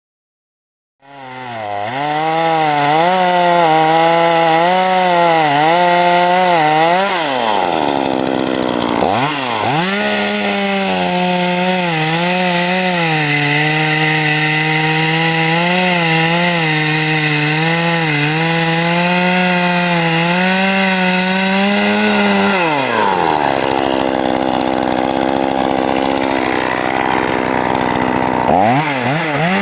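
Hitachi CS38EK two-stroke chainsaw running at high revs with a slightly wavering pitch. It drops briefly a few seconds in, then for several seconds near the end while the chain rasps through wood, and it revs back up.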